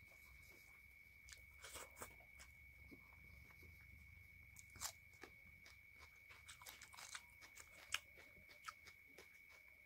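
Quiet hand-eating sounds: fingers mixing rice on a plate and chewing with crunches from raw onion, heard as scattered soft clicks and crunches. A faint steady high-pitched tone runs underneath.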